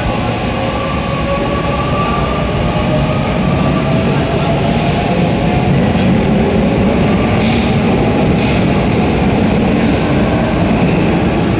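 Tobu 20050 series electric train pulling out of an underground station, its traction motors whining gently upward in pitch as it gathers speed. The cars then rumble past, with two sharp wheel clacks over rail joints about seven and a half and eight and a half seconds in.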